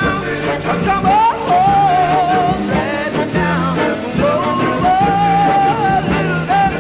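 A 1960s rock-and-roll 45 rpm single playing: a held, wavering melody line over a steady bass line and drum beat.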